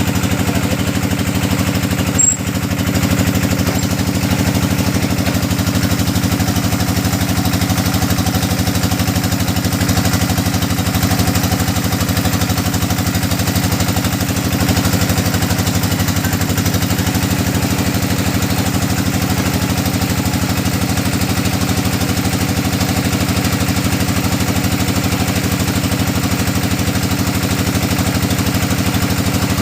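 Engine of a hydraulic deep-well drilling rig running steadily at a constant speed, with a single brief knock about two seconds in.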